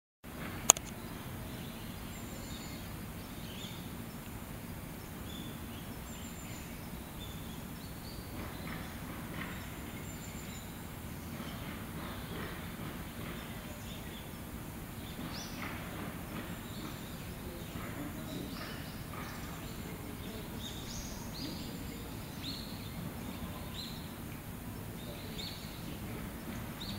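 Outdoor ambience: a steady low background noise with scattered short bird calls throughout, and a single sharp click just under a second in.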